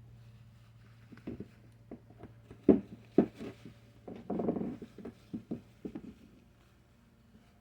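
Handling of greasy metal transmission parts during cleaning: light knocks and clicks, two sharp louder knocks a few seconds in, and a brief scrubbing sound in the middle.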